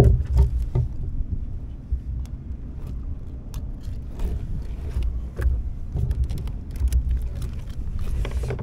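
Low rumble of wind and water on the microphone, with scattered light clicks and clinks from unhooking a porgy and handling a metal wire fish stringer, and a quick run of clinks about two-thirds of the way through.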